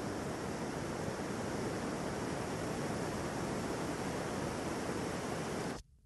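Gas blow torch flame burning steadily with a constant, even hiss, cutting off suddenly near the end.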